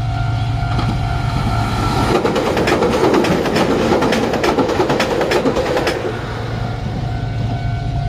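Kotoden 600-series four-car electric train passing close by, its wheels clicking rapidly over the rail joints. The noise swells about two seconds in, is loudest through the middle for about four seconds, then drops back as the last car goes by.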